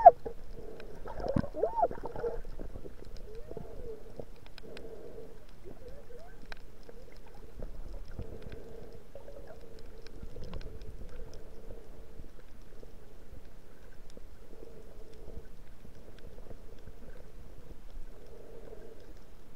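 Muffled underwater noise picked up by an action camera in its waterproof housing: an even, low rumble of water, with a few short muffled pitched sounds in the first two seconds.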